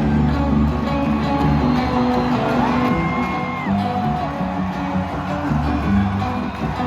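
Live rock band playing strummed guitar over a steady bass line. A short high whoop from the audience rises and falls about three seconds in.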